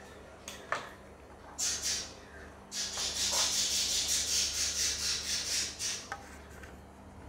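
Sandwich pieces rustling and scraping as they are pulled apart by hand and set on a plate: a few short scrapes, then a longer stretch of rustling near the middle.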